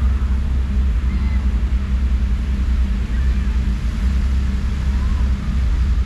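Fountain show's water jets and spray splashing back onto the lake: a steady rushing hiss over a strong low rumble.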